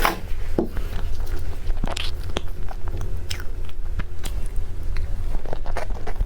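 A person biting and chewing food close to the microphone: irregular crunchy clicks and crackles, with a louder bite right at the start.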